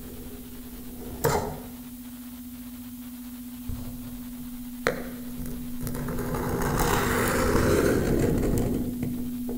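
Electroacoustic improvisation on tabletop guitar and electronics: a steady low pure tone held throughout, two sharp clicks (about a second in and near five seconds), and a noisy wash that swells from about six seconds and thins out near the end.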